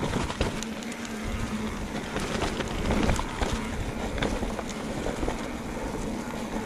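Mountain bike riding over a rough, stony trail: tyres rolling on the rocks with a constant rumble and frequent sharp knocks and rattles from the bike, under wind noise on the microphone.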